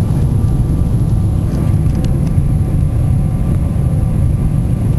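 Airliner cabin noise during the landing approach: a steady low rumble of engines and rushing air heard from inside the cabin, with a faint steady whine above it.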